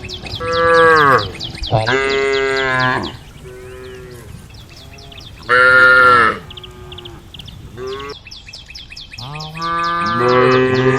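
Several cows mooing in turn, long drawn-out calls of different pitches that sometimes overlap, the loudest about a second in, around two to three seconds in and about six seconds in, as the cows call to the herd. A fast, high chirping runs behind them.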